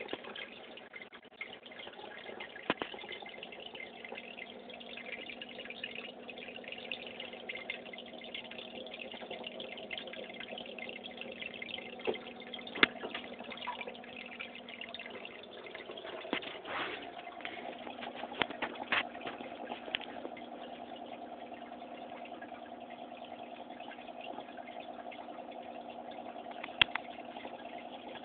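Aquarium water running through the tank's filter: a steady trickling and splashing with a low motor hum underneath, and a few sharp clicks and taps scattered through.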